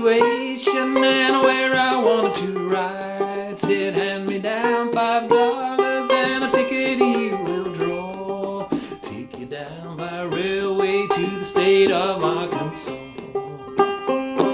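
Five-string banjo played clawhammer style in double C tuning: an instrumental break of an old-time tune.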